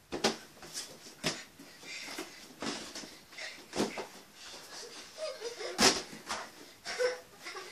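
Inflated balloons being kicked and batted along a carpeted hallway: a string of irregular sharp knocks, with the hardest hit about six seconds in.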